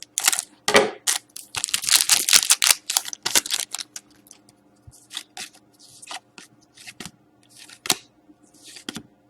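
A hockey card pack being torn open and its wrapper crinkled, followed by short swishes and snaps as the cards are slid out and flipped against one another.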